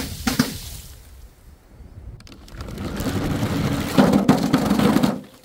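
Glass shattering at the start, the fragments settling over about a second. Then a rough rumble builds for about two and a half seconds and stops abruptly.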